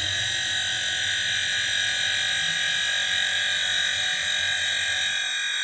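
Portable tyre inflator's electric compressor running steadily as it pumps up a car tyre, sped up fourfold so it comes out as a steady high-pitched buzz.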